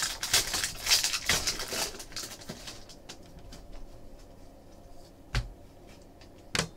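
Hockey trading cards being flipped and slid against each other in the hands, a quick run of papery rustles and flicks that thins out after about two and a half seconds, then two sharp taps near the end.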